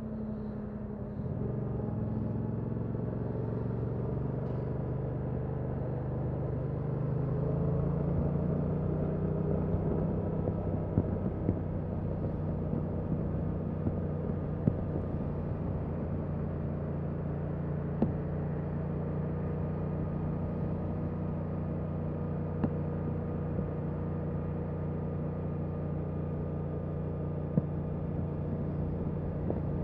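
Stock Yamaha MT-07's 689 cc parallel-twin engine and exhaust on the move. The revs fall at the start, the engine pulls harder again about a second in and climbs gently, then it settles into a fairly steady cruise. A few short sharp ticks come through along the way.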